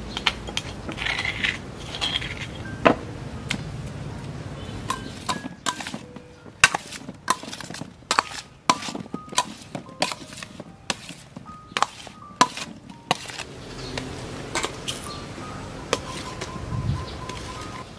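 Metal spoon clinking and scraping against a stainless steel tray while tossing peeled salak and cherries in chili paste: many irregular sharp clinks, some with a short metallic ring, thickest in the middle stretch.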